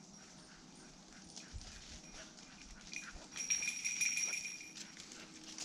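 Hunting dog whining at a rabbit burrow where it has found the rabbit, one long, steady, high-pitched whine lasting more than a second, about halfway through. Before it come light rustles of dry leaves underfoot.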